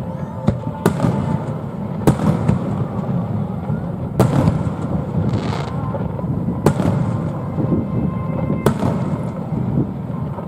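Aerial fireworks bursting: sharp bangs come every one to two and a half seconds over a steady low rumble, with a crackling hiss after the bang at about four seconds.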